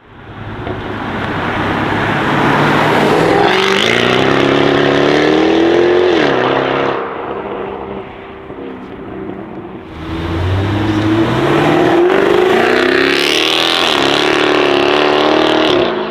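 Jaguar F-Type's supercharged 5.0-litre V8 accelerating hard twice, loud, its exhaust note climbing each time and then falling away, with a quieter lull between the two runs.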